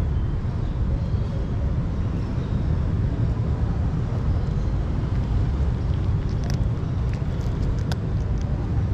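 A steady low outdoor rumble, with a cat crunching dry kibble heard as a few sharp clicks in the second half.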